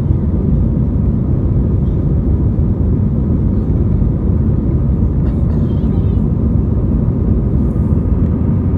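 Steady, loud low rumble of an Airbus A319's jet engines and airframe, heard inside the passenger cabin.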